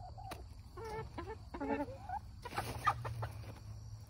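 Backyard hens clucking, several short calls in quick succession, with rustling and clicks a little past halfway as they scratch and peck through used tea bags on a compost pile.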